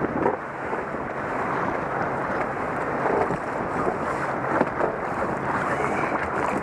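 Wind buffeting the microphone in a steady rush, with choppy water lapping and splashing against a kayak hull in small irregular slaps.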